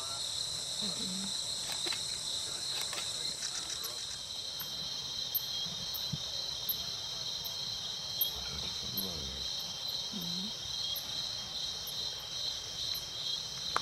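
Crickets and other insects chirring in a steady chorus. From about a third of the way in, a very high short chirp repeats roughly every half second.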